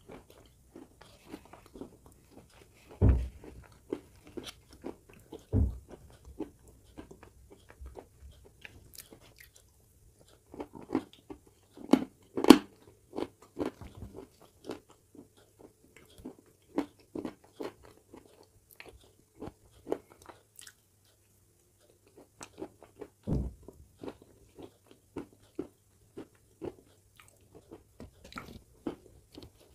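Close-miked chewing and crunching of wet white clay paste: many small sharp crunches, clicks and mouth sounds, with a few heavier thumps about three, six and twenty-three seconds in.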